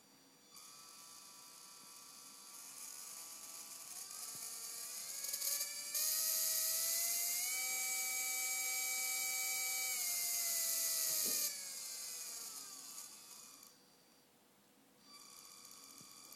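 Brushed RC car electric motor spun by a speed controller, whining as it is throttled up to full speed, held there for several seconds, then wound down and stopped; it starts again at low speed near the end. It runs smoothly on this known-good ESC, showing the motor is fine and the first ESC is at fault.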